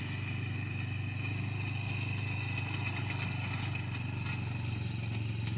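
ATV engine running steadily at low speed while it tows a trailer-mounted sprayer, with a steady high whine over the low engine hum.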